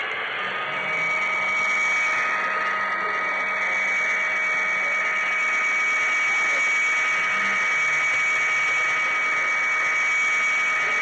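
Small electric motor and gearing of an HO-scale model train whining steadily as it runs along the track, picked up by the camera riding on the train, with wheel and rail noise under it. The whine steps up in loudness about a second in and then holds even.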